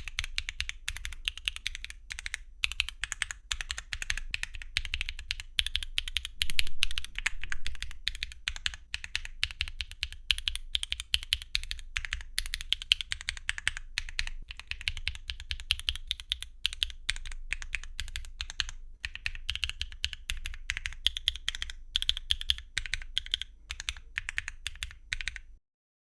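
Mechanical keyboard with tactile switches, foamless with a carbon-fibre plate and PBT Cherry-profile keycaps: a single key pressed and released over and over, sharp clicky clacks, louder for a moment about seven seconds in.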